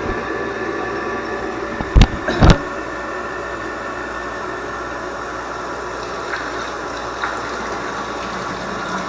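A 1/2 HP electric water pump running with a steady hum. Two sharp knocks come about two seconds in, half a second apart.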